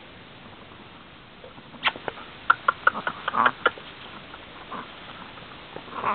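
Chihuahua puppies yipping and squeaking while they play-fight, a quick run of short high cries about two seconds in that lasts under two seconds.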